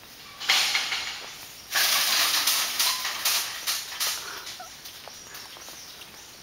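Crested black macaques giving harsh, hissing, rapidly pulsing calls in two long bursts, the second longer and fading out.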